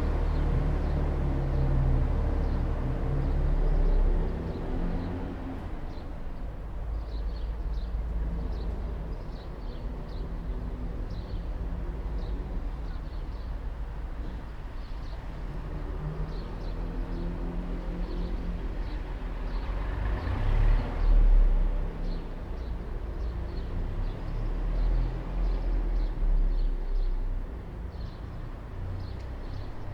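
Old truck's engine running with a low rumble that rises and falls, swelling louder about 4 seconds in and again about 21 seconds in.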